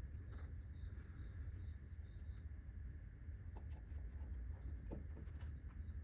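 Quiet workshop room tone: a steady low hum, with faint high two-note chirps repeating over the first couple of seconds and again at the end, and a few soft knocks in the middle.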